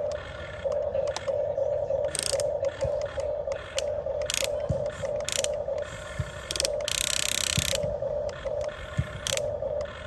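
Huina 1550 RC excavator's small electric motors and plastic gearboxes whining in short on-off bursts as its functions are worked, with clicking and ratcheting from the gears and a brief rush of noise about two-thirds through.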